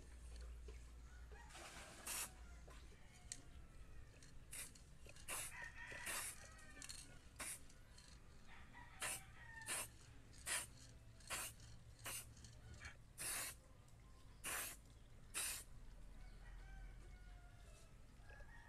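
About fifteen short hissing bursts of spray, one every half-second to a second, stopping near the end: a welding machine's circuit board being sprayed. A rooster crows faintly in the background.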